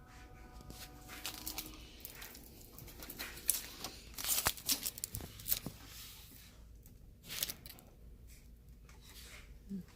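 Cricut Explore Air 2 cutting machine loading its cutting mat, making an irregular scraping, crackling noise in uneven bursts, strongest in the middle. The noise during mat loading is what the owner treats as abnormal.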